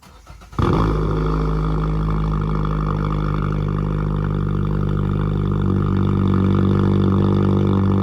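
Emergency Alert System attention tone: a loud, steady, distorted alarm tone that starts about half a second in and holds without change.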